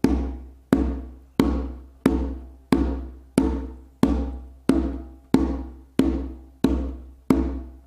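Haitian hand drum played with the muff stroke: fingertips pressing into the head like a held open tone, damping and changing its pitch. Twelve even strokes, about one every two-thirds of a second, each dying away before the next.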